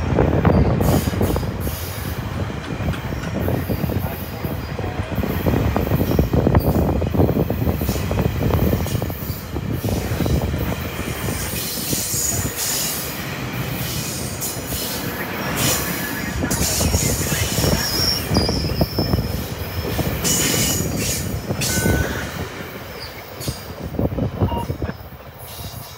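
A train rolling past on the rails, its wheels rumbling steadily, with short high wheel squeals from about midway, easing off near the end.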